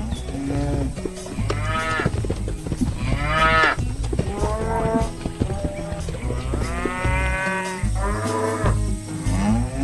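Cattle mooing: about six separate calls in a row, some higher-pitched than others.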